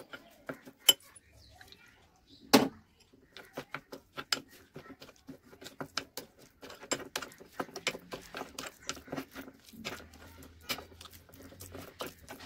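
Metal spoon clicking and scraping against a glass bowl while stirring a ground spice-powder stuffing into a paste with a little water. There are two sharp knocks in the first three seconds, then a quick, uneven run of clicks.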